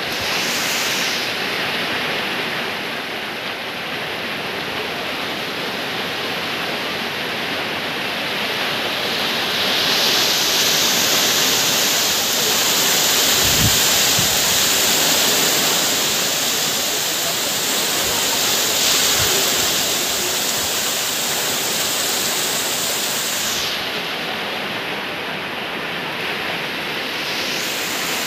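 Heavy typhoon rain pouring steadily. It grows louder and hissier from about a third of the way in until near the end. A couple of brief low thuds come near the middle.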